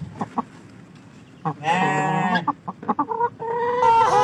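A chicken gives one loud, drawn-out squawk lasting under a second, followed by a few short clucks. Near the end a different, steady held tone begins.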